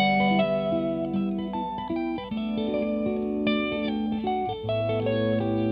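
Instrumental background music: a stream of plucked-string notes over sustained bass notes.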